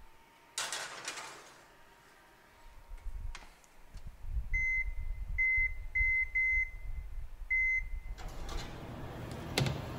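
Electric wall oven being closed and set: a brief swish and a knock as the door shuts, then five short, high, single-pitched beeps from the oven's touch control panel as the broil setting is keyed in.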